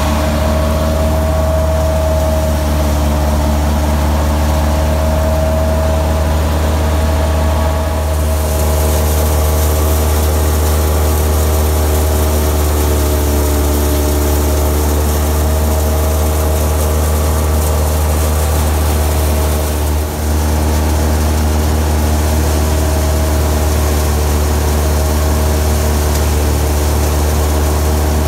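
Ford 3610 tractor's three-cylinder diesel engine running steadily at working speed, driving a wheat thresher through its PTO, with the thresher running alongside. A continuous deep drone that takes on more hiss about eight seconds in and dips briefly about twenty seconds in.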